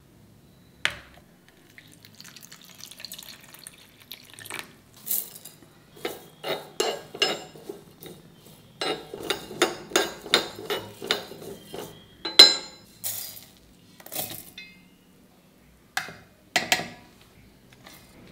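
Metal utensils clinking and scraping: a steel spoon stirring dry-roasting coriander seeds in a small iron pan, in quick repeated strokes of about three a second through the middle. Single sharp knocks of metal on metal come near the start and toward the end.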